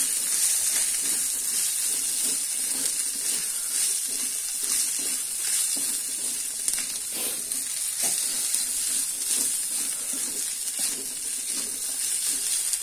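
Shredded chicken, corn and petai beans sizzling in a hot wok as a spatula stirs them, scraping and tapping against the pan again and again over a steady frying hiss.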